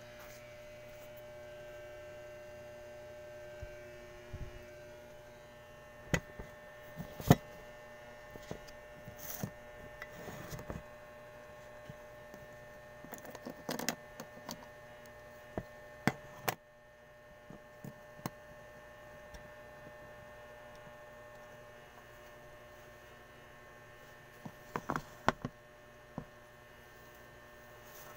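A steady electrical hum, with scattered sharp knocks and clinks of dishes being set out and handled, a few of them bunched together near the end.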